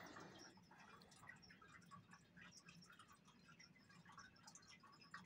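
Faint, irregular scratching and ticking of a colored pencil shading on paper.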